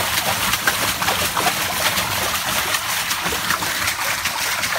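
Water splashing and churning continuously in a shallow fish tank as hands stir it, with many small spatters.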